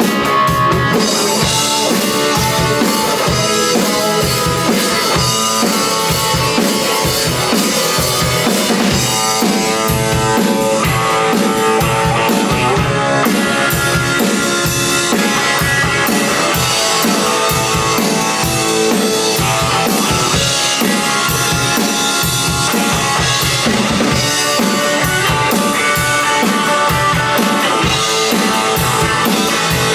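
Electric guitar played through a 1967 Supro Thunderbolt valve combo amplifier, with a drum kit keeping a steady rock beat.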